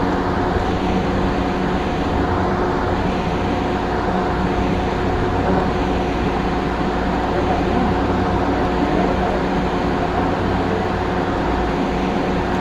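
Light rail train running along the track, heard from inside the driver's cab: a steady rumble of wheels on rails with a constant hum made of a few steady tones.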